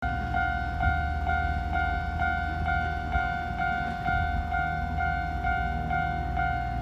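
Japanese railway level-crossing warning bell ringing, an electronic ding repeating evenly about twice a second, over a low rumble. It warns that a train is approaching the crossing.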